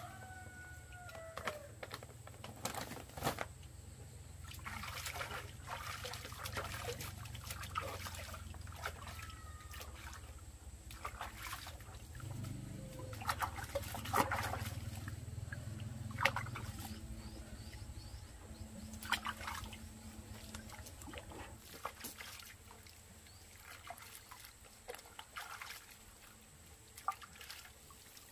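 Water splashing and sloshing in a plastic basin as hands scrub and rinse a puppy in soapy water, with scattered short splashes and trickles.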